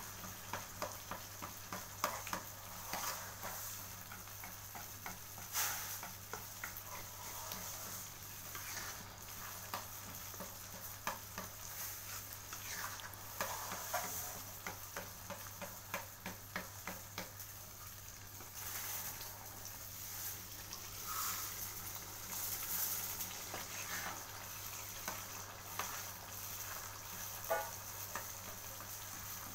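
Chili sambal paste sizzling in a pan as it cooks down, with many small pops and the scrape of a spatula stirring it. It is being fried until its water cooks off.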